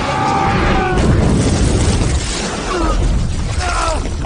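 Fantasy battle film soundtrack: continuous crashing, rumbling blasts and debris with a heavy low end, and a few short shouted cries over it near the start and again a few seconds in.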